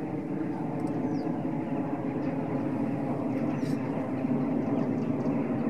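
A steady low engine drone, with a few faint high bird chirps above it.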